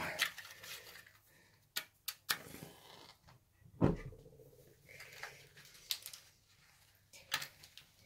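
Scattered light clicks and taps, a short scrape, and one louder dull knock about four seconds in, from hands handling a PT-1 primus stove and its metal case while priming its burner with alcohol.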